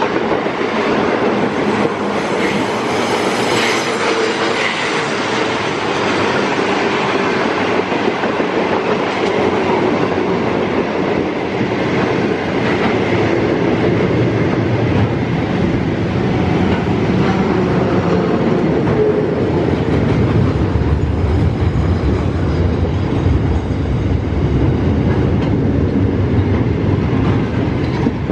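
Container freight train's wagons rolling past at speed: a steady rumble and clatter of steel wheels on the rails. The low rumble grows stronger about halfway through.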